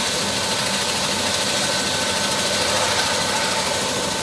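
Single-engine turbine helicopter running on the ground with its main rotor turning at idle: a steady engine noise with a thin whine.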